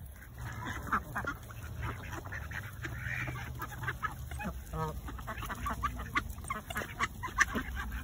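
A flock of mallards, white domestic ducks and Canada geese calling, with many short overlapping quacks and honks throughout.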